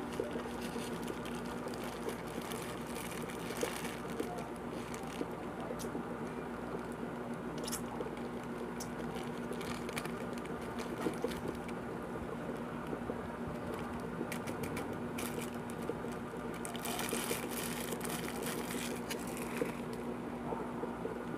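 Thin clear plastic being handled, crinkling and clicking now and then, with a denser patch of rustling near the end. Under it runs a steady low hum.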